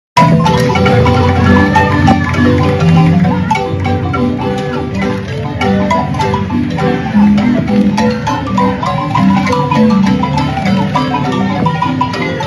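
A wooden marimba playing a tune in many quick mallet-struck notes. It starts suddenly.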